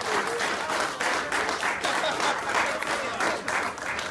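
A small crowd applauding steadily, with a few voices over the clapping.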